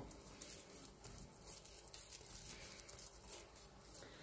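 Faint soft rustles and light pats of a hand working sticky whole-wheat dough and loose wheat bran.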